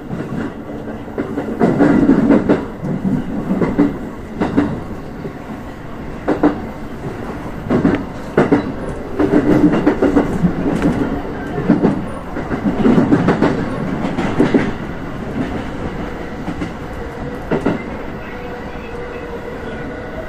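JR West 223 series electric train running over jointed track and points, its wheels clattering in irregular clusters of clicks over the steady running noise, growing more even near the end.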